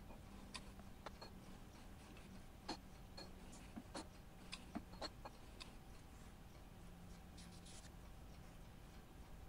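Near silence: faint, irregular light clicks, most of them in the first six seconds, over a faint steady hum.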